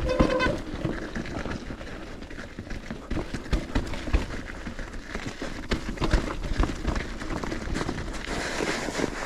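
Canyon mountain bike riding over rough, rocky dirt trail: tyres crunching with irregular knocks and rattles from the bike over bumps. A steady high tone cuts off about half a second in, and a windy hiss rises near the end.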